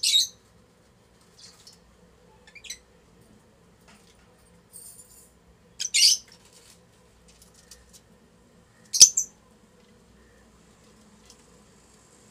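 Lutino Fischer's lovebirds giving short, shrill chirps: three louder double chirps, right at the start, about six seconds in and about nine seconds in, with fainter chirps between.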